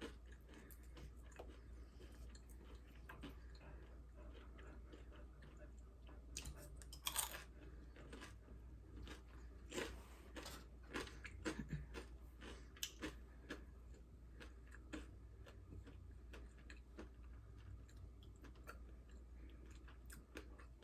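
Close-up mouth sounds of someone chewing and biting a fried cream cheese rangoon: faint, irregular crunches and wet clicks, a few louder crunches about a third and halfway in.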